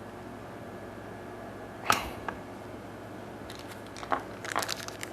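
A sharp click about two seconds in, then a run of small, light clicks and rattles near the end: small metal parts of a mechanical-pencil kit being handled and set down during assembly, over a steady low hum.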